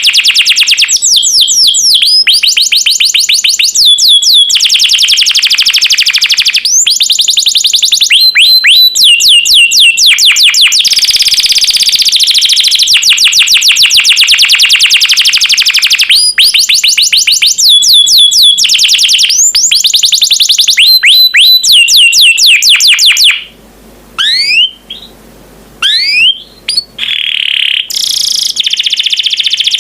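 Domestic canary singing a long song of rapid trills, each phrase a fast run of repeated notes, some sweeping up and some down. The song breaks off briefly near the end, with a few single sweeping notes, then resumes.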